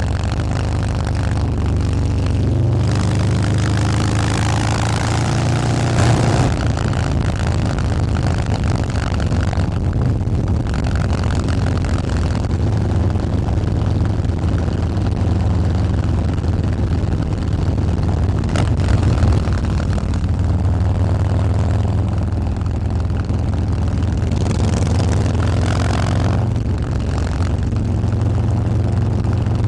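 Harley-Davidson Fat Boy's 131 ci (2147 cc) Stage 4 V-twin running through a Bassani 2-into-1 exhaust, a steady, deep exhaust note.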